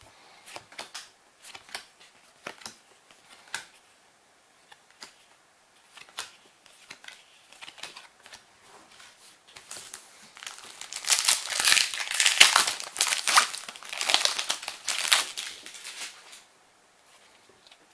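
Foil wrappers of Yu-Gi-Oh booster packs being handled and torn open. Scattered light crinkles and clicks come first. From about ten seconds in there is a loud stretch of dense crinkling and tearing, which dies down about two seconds before the end.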